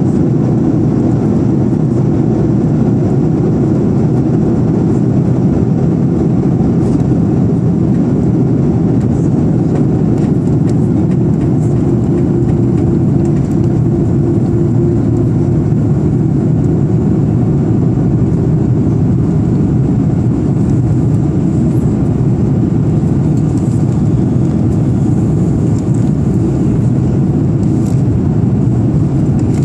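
Steady low roar inside the cabin of an Airbus A340-300 in flight, from its CFM56 turbofan engines and the air rushing past the fuselage, heard at a window seat over the wing. A faint, thin high whine runs through it.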